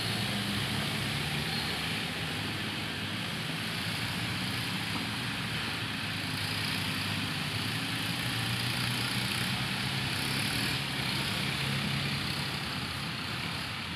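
Diesel tractor engines running under load as tractors pull heavily loaded trolleys of wood past: a steady low engine drone.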